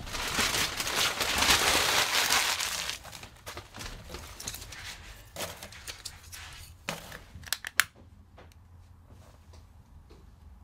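Paper crumpling and rustling loudly for about the first three seconds while a fire is laid in a wood-burning stove. Then scattered light knocks and clicks, with a few sharper clicks about three-quarters of the way through.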